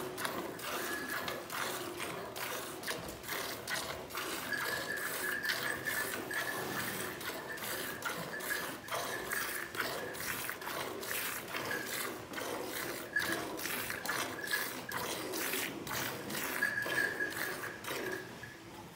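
Cow being milked by hand into a steel pail partly full of milk. The hand-squeezed squirts hit the milk in a quick, steady rhythm of short hissing spurts, about two or three a second.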